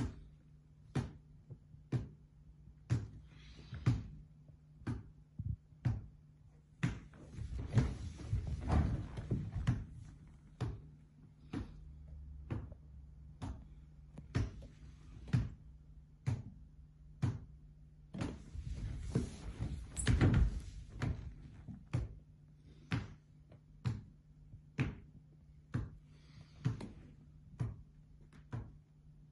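Sharp knocks at a steady pace of about one a second, with a few busier stretches of thuds and shuffling between them, over a steady low hum.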